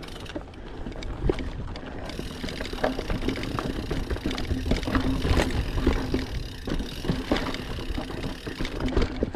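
Mountain bike riding over a rocky dirt trail: tyres rolling on dirt and stones, with frequent knocks and rattles as the bike goes over bumps, over a steady low rumble.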